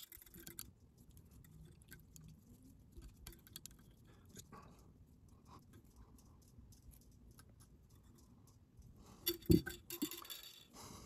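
Faint small ticks and rustles of fly-tying handwork at the vise: thread wraps tying off the wire rib on the fly's body. About nine and a half seconds in there is a louder cluster of clicks with a short thump.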